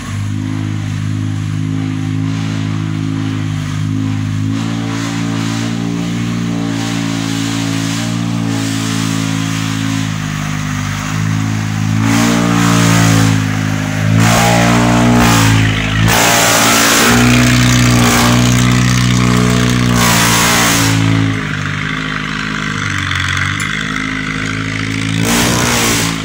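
A loaded vehicle's engine labouring up a steep, slippery hill on chained tyres. It runs steadily at first, then from about halfway through gets louder and revs higher for several seconds before settling back.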